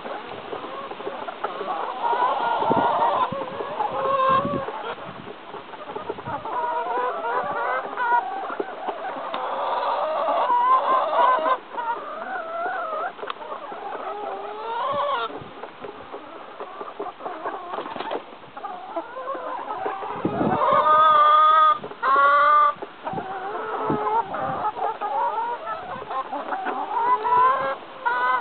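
A flock of brown laying hens clucking and cackling continuously as they feed at a trough, many calls overlapping. About three-quarters of the way through, a louder run of rising calls stands out.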